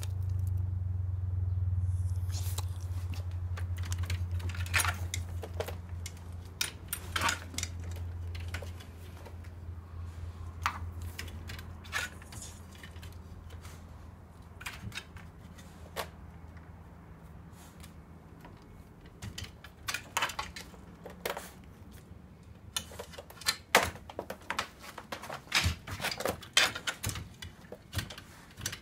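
A Shiba Inu pawing and scrabbling at its wooden doghouse and half-door: scattered clicks and knocks with light metallic clinks, coming thick and fast near the end. A low steady hum runs under the first half and fades out.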